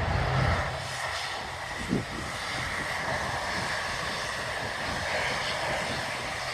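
Jet aircraft engines running at a distance: a steady rushing sound with a high whine.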